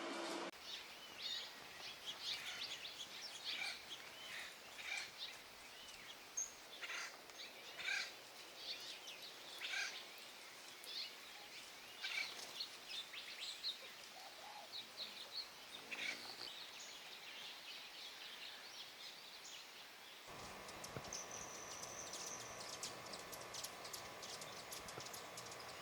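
Small birds chirping and calling, many short high notes overlapping. About 20 seconds in a steady hum starts abruptly, with a thin high buzz for a couple of seconds over it.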